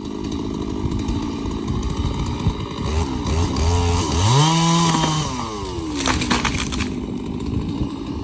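Chainsaw running while felling a dead standing tree. It revs up about three seconds in, its pitch falls back a couple of seconds later, and a short run of sharp cracks follows about six seconds in.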